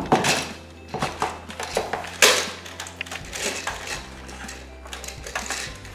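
Hard plastic dinosaur toys clattering and knocking against each other, the plastic tub and the hard floor as they are taken out and set down: a string of sharp knocks, loudest right at the start and a little over two seconds in, thinning out toward the end.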